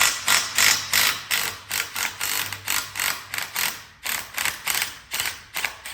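Hand ratchet wrench being swung quickly back and forth on a bolt, a rapid, even run of clicking strokes about three to four a second that stops near the end.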